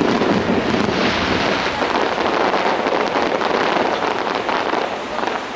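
Starmine fireworks barrage: a dense, continuous run of overlapping bursts and crackles, easing slightly near the end.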